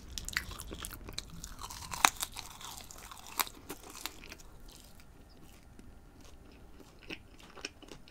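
Close-miked chewing of French fries dipped in sauce: wet mouth sounds broken by sharp clicks, the loudest about two seconds in, quieter through the second half.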